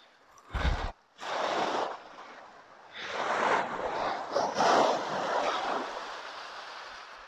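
Small waves breaking and washing up a shingle beach: a short wash about a second in, then a longer surge from about three seconds that slowly fades. A brief gust of wind hits the microphone near the start.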